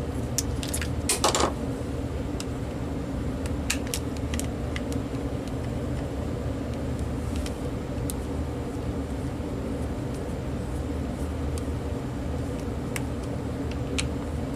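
Scattered sharp plastic clicks and snaps from a cordless phone handset being handled and opened, a quick cluster in the first second and a half and single clicks later, over a steady low hum.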